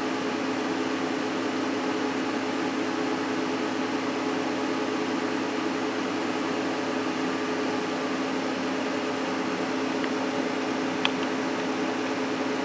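Steady whirring hum of cooling fans running, with two constant pitched tones in it. A single faint click comes about eleven seconds in.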